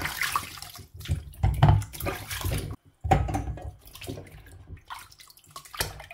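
Water splashing and sloshing as beetroots are scrubbed by hand in a plastic colander of water, in irregular surges. The sound breaks off for a moment about three seconds in.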